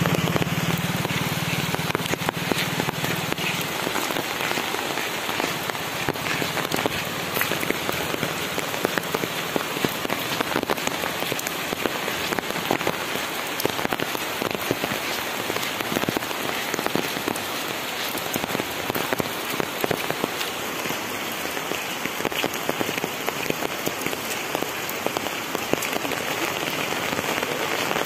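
Steady rain, a dense even patter of drops falling on the ground, leaves and an umbrella overhead.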